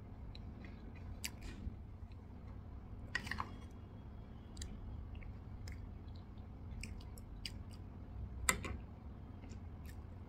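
A person eating soft strawberry Swiss roll and cream off a metal spoon: quiet wet chewing and small mouth clicks, with two louder, sharper clicks, about three seconds in and again near the end.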